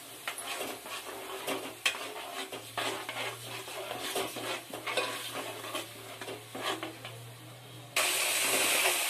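Steel spoon stirring and scraping blended tomato into frying onions in a pan, with irregular clicks against the pan and light sizzling. About eight seconds in, a much louder, steady sizzle of the masala frying starts suddenly.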